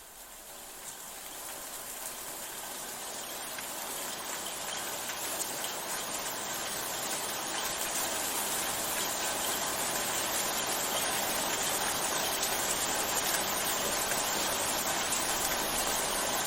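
Steady rushing water of a waterfall, an even hiss that fades in over the first several seconds and then holds steady.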